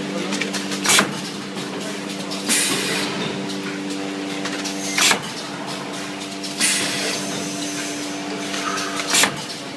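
Automatic blister card packaging machine running with a steady hum, cycling about every four seconds: a sharp clack three times, with a hiss of about a second between the clacks twice.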